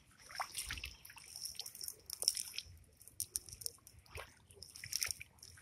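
A wet nylon cast net being handled on grass: irregular dripping and wet rustling with short crackling clicks.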